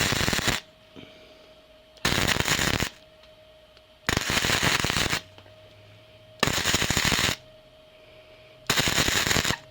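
MIG welder arc crackling in five short bursts about two seconds apart, each under a second long, as a plug weld is filled in with short runs. A faint steady hum fills the gaps between bursts.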